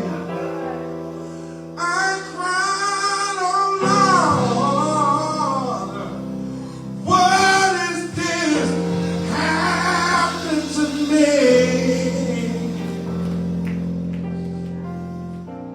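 Gospel singing: a solo voice sings two long phrases of bending, drawn-out notes over sustained accompanying chords, the music fading toward the end.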